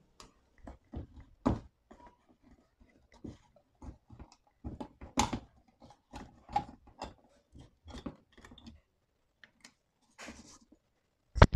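Can opener on a Victorinox Swiss Compact's combo tool cutting around a tin can lid with a backward levering stroke: irregular sharp clicks and crunches of metal being pierced, one to three a second. A single louder knock near the end.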